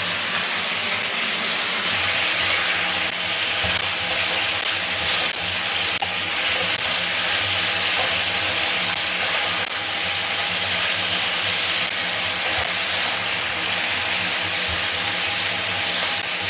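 Chicken pieces frying with ginger in sesame oil in a frying pan, a steady sizzle while a spatula stirs them, with a few light knocks of the spatula against the pan. A steady faint hum lies underneath. The chicken is half-cooked at this stage.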